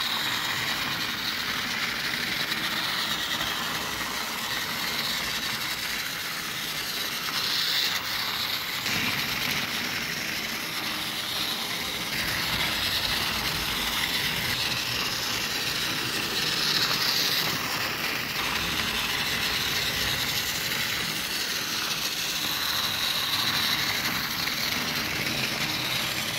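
Battery-powered TOMY Trackmaster Oliver toy engine running along plastic track. Its small motor and gearbox whir steadily over the wheels' rattle, swelling a little every few seconds. It runs on a newly replaced cog with freshly lubricated gears.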